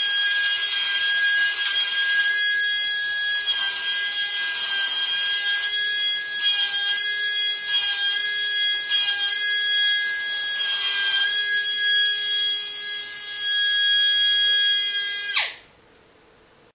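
DR-737 pneumatic die grinder running at speed against a metal block: a steady high whine over a strong hiss of air, the level wavering a little as it is pressed to the work. It cuts off suddenly near the end.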